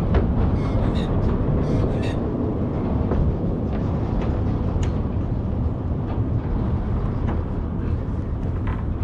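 Cars driving over the bridge's open steel grid deck, a steady low rumble, with a few faint clicks over it.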